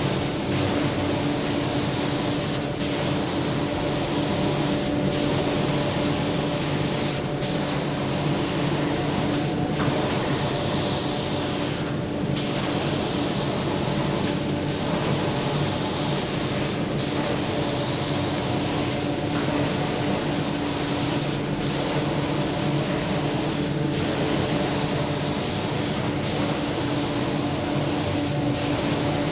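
WD-5500 automatic spraying machine's guns spraying PU paint onto an MDF board: a loud, steady hiss that cuts out briefly about every two and a half seconds, over a steady hum.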